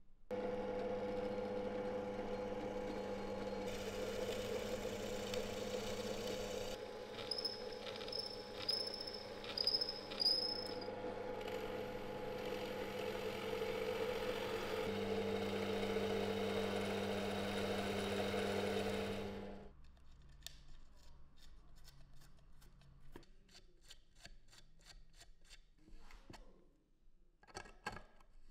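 A power tool's electric motor running steadily for about twenty seconds, with five short high squeals in quick succession near the middle, then stopping. A run of light clicks and taps follows.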